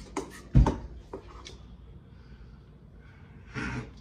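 Kitchen handling sounds: a few light clicks and knocks of utensils and a mixing bowl, with one loud dull thump about half a second in.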